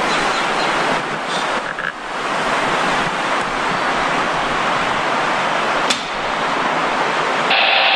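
Steady rushing noise of the Sacandaga River's flowing water, even and unbroken, with a single sharp click about six seconds in.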